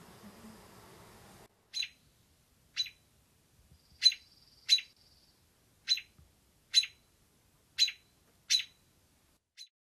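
An American robin giving a series of sharp chirps, about one a second, nine in all, the last one faint. Before that, for the first second and a half, a low humming, likely the honeybee swarm, cuts off abruptly.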